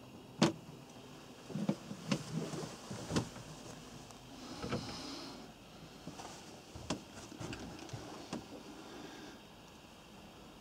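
Handling and movement noise in a small boat cabin: scattered knocks and clicks, the loudest about half a second in, and a brief hiss around five seconds in.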